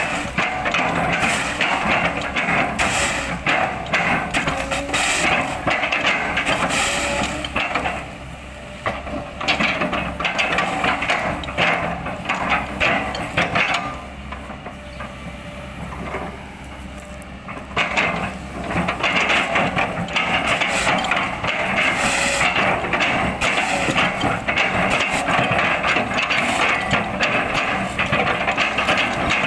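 Kobelco excavator running while its bucket chops an oil palm trunk into chips, with many sharp cracks and knocks of the wood over the engine and hydraulics. It goes quieter for a moment about eight seconds in, and again for a few seconds around the middle.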